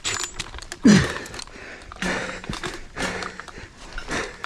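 A man breathing hard and panting from the exertion of a long rope climb, with a short falling grunt about a second in and low voiced groans on a couple of the exhales.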